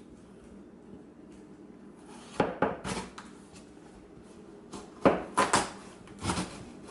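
Kitchen knife cutting a raw spaghetti squash in half: sharp knocks and thuds of the blade working through the hard squash, in two clusters, about two and a half seconds in and again about five seconds in.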